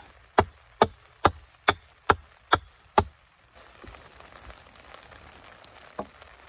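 Axe chopping notches into a wooden post: seven quick, sharp strikes at about two a second, stopping about halfway through. One lighter knock follows near the end.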